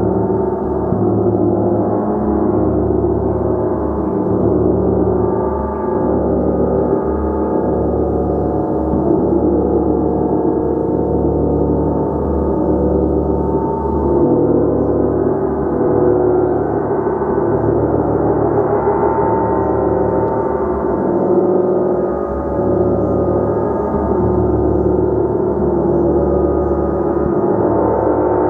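Gong played continuously, its many overlapping tones building into a dense, sustained shimmering wash with no gaps, held at a steady loud level.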